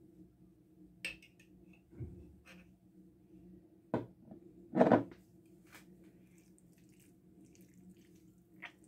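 A metal spoon knocking and scraping against a glass jar of sandwich spread and the salad tray: a few separate clinks, the loudest about four and five seconds in, over a steady low hum.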